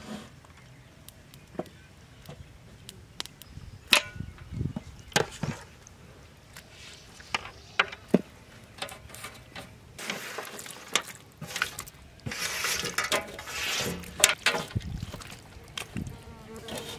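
Marinated raw quail being handled by hand into a cloth-lined steel pot: scattered soft slaps and light clicks of meat against steel. A denser stretch of rustling comes about ten seconds in.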